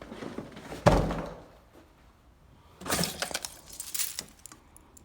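A sharp knock about a second in, then clinking and rattling of hard household items, like glassware or crockery, being handled and set down in a box.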